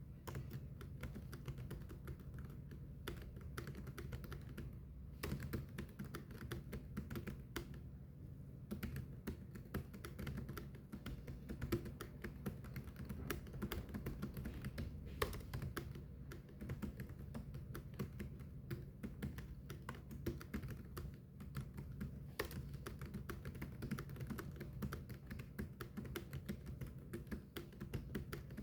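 Fast, continuous typing on a computer keyboard, a steady stream of key clicks with no pauses, over a low steady hum.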